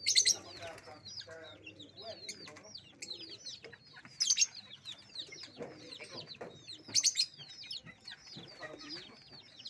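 Caged lovebirds chattering with rapid high chirps, with loud shrill squawks right at the start, about four seconds in and about seven seconds in. Chickens cluck low in between.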